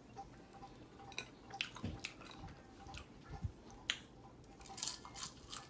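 Chewing and mouth smacking while eating fried chicken: scattered wet clicks, with a few soft knocks about two, three and a half and four seconds in.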